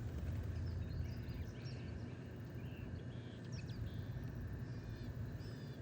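Scattered faint bird chirps and short trills over a steady low rumble.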